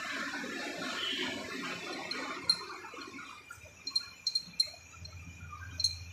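A cloth rubbing and rustling over the steel shift forks inside a Swaraj 742 XT tractor's gearbox housing, then about six light metallic clinks with a short ring as the shift fork and rail parts are handled and tapped into place.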